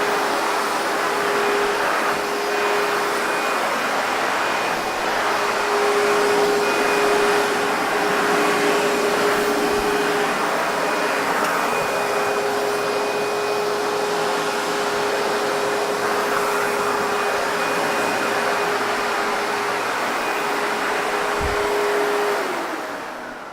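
ProTeam MegaVac backpack vacuum running: a steady rush of air over a steady motor whine. Near the end it is switched off, and the whine falls in pitch as the motor winds down.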